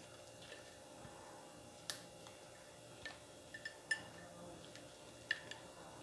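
Faint handling sounds of a banana-leaf parcel being folded and tied with a strip of leaf on a ceramic plate: a handful of short, sharp, irregular clicks and crackles.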